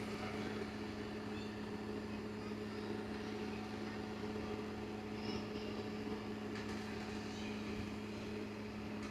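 Steady low electrical or motor hum, like a household appliance running, with a few faint, short high chirps over it.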